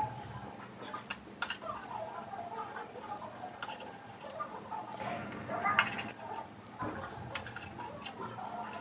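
Spoon or fork clinking and scraping on a plate while eating, a few sharp clicks spread irregularly over the seconds.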